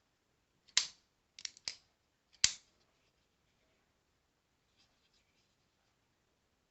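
Folding knife being handled: a sharp click, a quick run of three smaller clicks, then another sharp click, all within the first few seconds, followed by faint small handling sounds.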